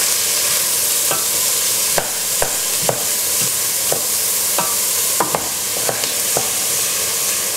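Diced onions and chilli sizzling gently in butter and olive oil in a stainless steel pot while being stirred with a wooden spoon, which gives a handful of irregular scrapes and knocks against the pot.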